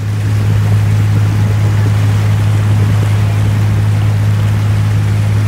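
Tour boat's engine running with a steady low drone, over the rush of water churning in the boat's wake.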